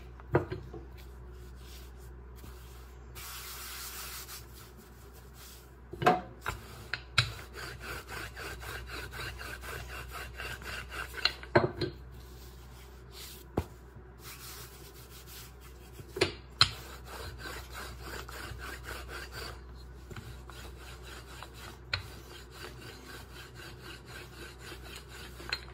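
A wooden rolling pin rolls out floured puff pastry dough on a stone worktop, giving a soft steady rubbing. Now and then there is a sharp knock, sometimes two or three close together, as the pin or the hands hit the worktop.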